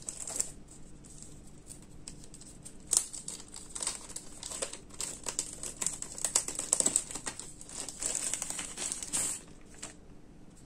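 Thin plastic bag crinkling and rustling as hands unwrap a drone remote controller from it, with a sharp crackle about three seconds in. It goes quieter near the end once the controller is out.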